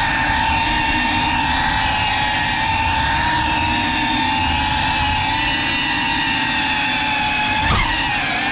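Small FPV quadcopter's electric motors and propellers whining steadily as it flies. About three-quarters of the way in there is a brief knock, and the whine dips sharply in pitch and then climbs back.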